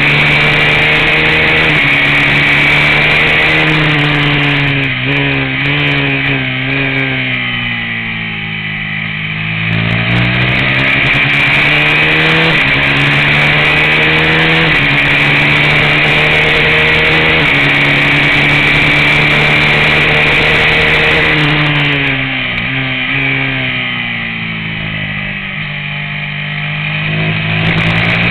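Racing motorcycle engine at high revs, heard from a camera under the fairing with wind rush. About five seconds in and again about 22 seconds in, the revs fall in steps as the rider shuts off and downshifts for a corner, then climb steadily as the bike accelerates out.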